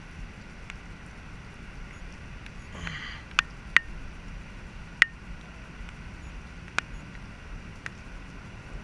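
Steady hiss of light rain falling on the lake surface, with several sharp clicks scattered through, the loudest a few coming close together near the middle.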